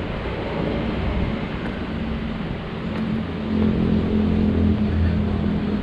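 A motor vehicle engine running, its low hum growing louder about three and a half seconds in, over a steady rush of wind and road noise.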